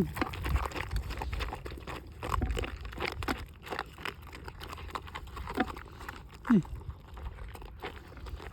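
Animals eating the food they have been given: scattered crunching, rustling and chewing, with two short falling whimpers past the middle.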